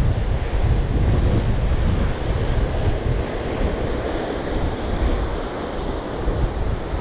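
Sea surf breaking and washing against rocks, with wind buffeting the microphone.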